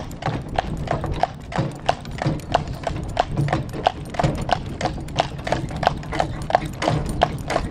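Draft horse's hooves clip-clopping in a steady rhythm, about three strikes a second, over a low steady rumble.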